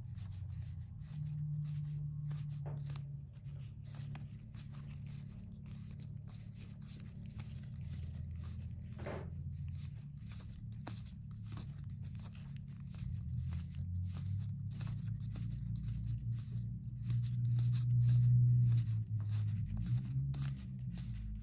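Playing cards from a board game being handled and slid through the hand, making many small clicks and rubbing sounds, over a low hum.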